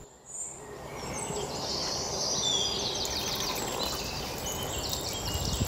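A thin stream of water pouring and splashing steadily onto a small plastic toy on a wet rock, with birds chirping in the background.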